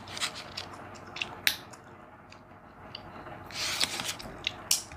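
Plastic blister pack of a nail polish bottle handled and turned in the hands: scattered light plastic clicks and crinkles, with a short rustle about three and a half seconds in.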